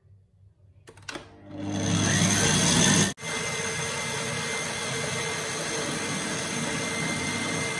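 Electric stand mixer with a wire balloon whisk beating egg whites in a stainless steel bowl. After a click about a second in, the motor spins up. It cuts out abruptly near the three-second mark, then runs steadily with a high whine.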